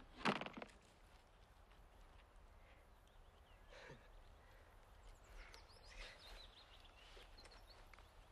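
Shutter release of an Instamatic-type compact film camera pressed by a finger: a sharp click, then a louder quick rattle of clicks from the mechanism a moment later. Afterwards faint, scattered bird chirps over quiet woodland background.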